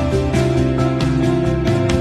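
Background music: an instrumental track with sustained notes over a steady beat.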